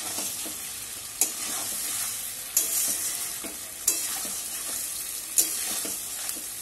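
Metal spatula scraping against a metal wok as fried green banana pieces and fish are stirred and fried down in spiced oil, which sizzles steadily. There are four scraping strokes about a second and a half apart, each followed by louder sizzling.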